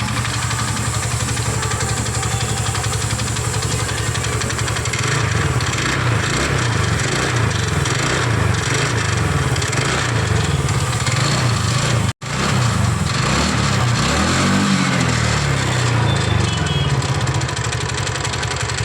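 TVS Ntorq scooter's single-cylinder engine running, its low note shifting from about five seconds in. The sound breaks off for an instant about twelve seconds in.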